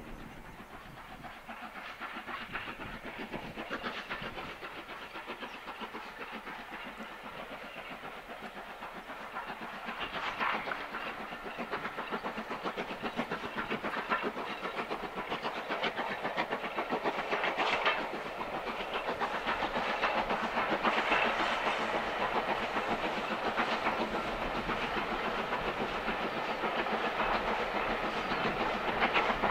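Steam locomotive working with a train of coaches: its exhaust beats and the clatter of the carriages on the rails, growing steadily louder.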